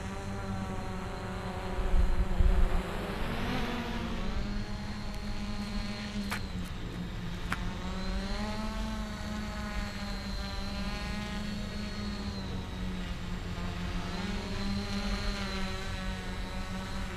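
Quadcopter's electric motors and 9.6-inch propellers buzzing in flight, the pitch rising and falling as the throttle changes. A brief low rumble comes about two seconds in.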